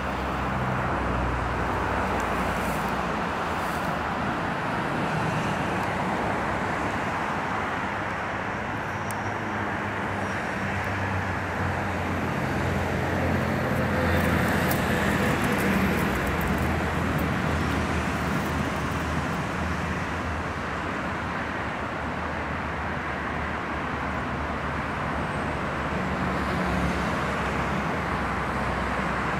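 Steady low vehicle rumble with a noise haze over it, its low drone shifting a little in pitch but never stopping.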